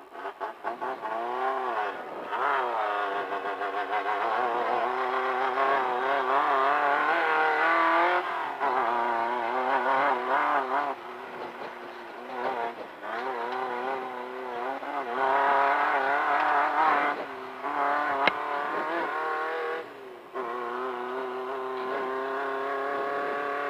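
Class 1500 off-road race car's engine revving hard under acceleration, climbing in pitch through each gear and dropping back at every shift, over and over. There is a single sharp knock about three quarters of the way in.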